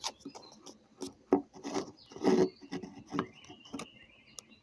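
Irregular clicks, knocks and short scraping rubs, as of hard objects being handled and moved about, with no motor running.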